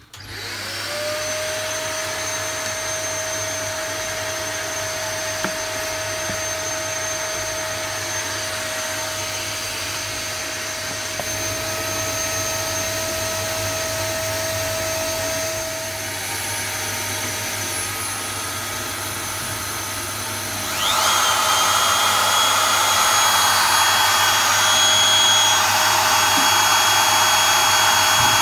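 Vacuum motor for a CNC vacuum bed switched on, spinning up within a second and then running steadily with a whine, sucking an 8 mm plywood sheet down onto the perforated table. About 21 seconds in, a second, louder motor starts and settles into a higher whine.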